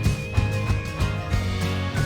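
Background music: guitar-led instrumental with a steady beat and bass line.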